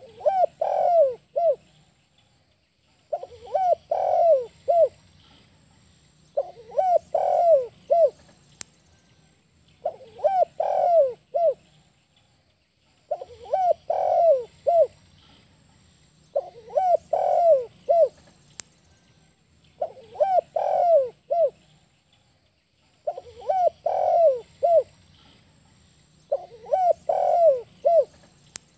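Spotted dove (tekukur) singing its breeding-condition cooing song: a phrase of four or five coos about a second and a half long, repeated about every three seconds, nine times.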